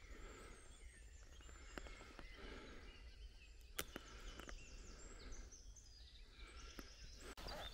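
Quiet woodland ambience: faint birdsong, a run of short high falling notes in the second half, with a couple of faint clicks.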